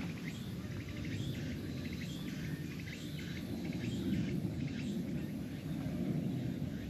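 Outdoor ambience: a steady low rumble with faint, short high chirps repeating over it.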